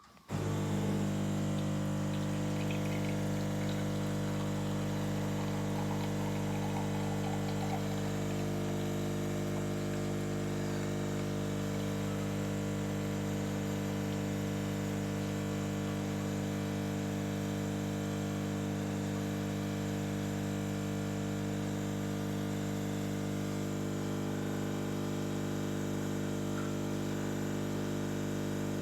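Miele CVA 4060 built-in coffee machine's water pump starting abruptly and running with a steady, even hum while liquid pours.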